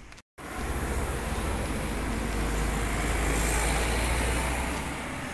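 A road vehicle passing, its low rumble and rushing tyre noise swelling to a peak about three and a half seconds in, then fading.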